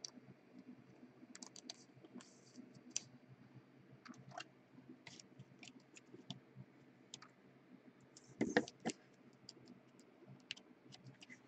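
Faint, scattered clicks and scratches of trading cards and plastic being handled: a card slid into a soft plastic sleeve and a rigid plastic toploader. A louder pair of clicks comes a few seconds before the end.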